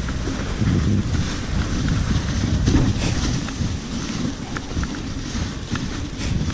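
Dog sled running over packed snow: a steady rumble from the sled, with wind buffeting the microphone and light scattered clicks.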